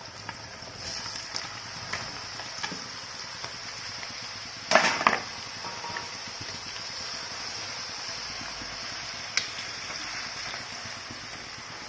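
Moong dal deep-frying in hot oil in a kadai: a steady high sizzle with faint ticks. There are two loud knocks about five seconds in and a lighter tick near the end.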